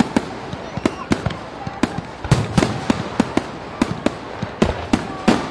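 Fireworks display: shells bursting in a rapid, irregular string of sharp bangs, several a second.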